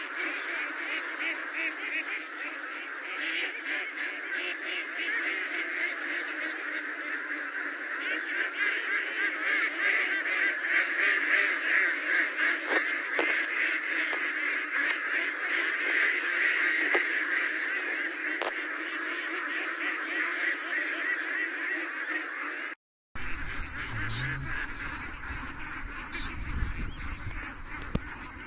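Massed calling of a huge flock of domestic ducks, a continuous dense chorus of quacks from thousands of birds. It drops out for a moment near the end and then resumes a little quieter.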